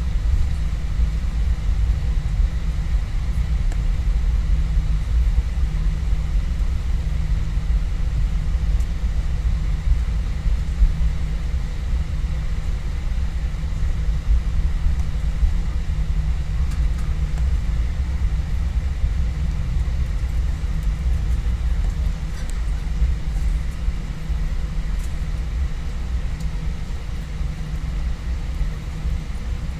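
Airbus A320 cabin noise while taxiing: a steady low rumble from the jet engines at taxi power and the wheels rolling on the taxiway, with a faint steady whine above it.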